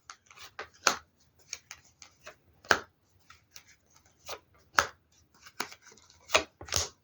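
Tarot cards being shuffled by hand: irregular sharp snaps and taps of the cards, a few louder slaps spread unevenly through the shuffle.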